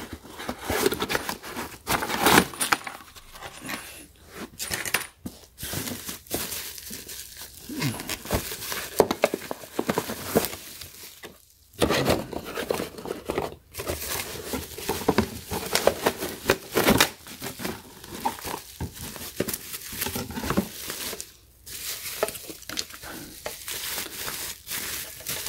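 Bubble wrap and cardboard packaging crinkling and rustling as they are handled, with irregular crackles throughout and a few brief pauses.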